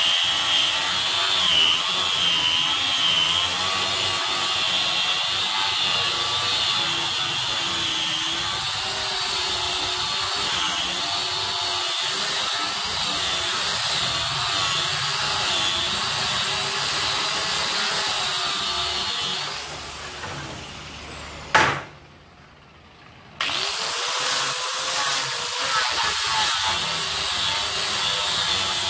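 Handheld angle grinder with a sanding disc, running steadily against a wooden door frame with a high whine. About two-thirds of the way through it is switched off and winds down with a falling whine. A click and a moment of near quiet follow, then it starts up again with a rising whine and runs on.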